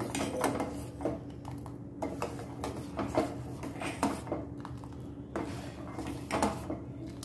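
Steel spoon scraping and clinking against the sides and bottom of a steel pot, in repeated irregular strokes, while stirring thick rice-and-milk khir. A steady low hum runs underneath.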